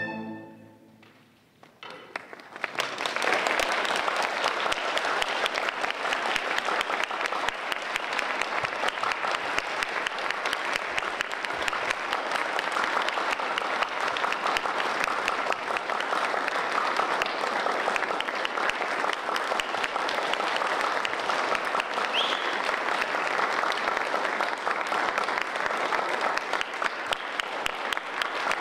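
The orchestra's closing chord fades out, and after a brief hush about two seconds in, the audience breaks into steady applause that carries on.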